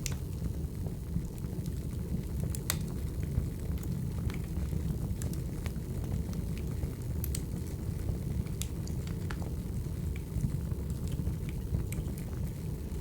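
Wood fire burning: a steady low rush of flames with scattered sharp crackles and pops of the burning logs.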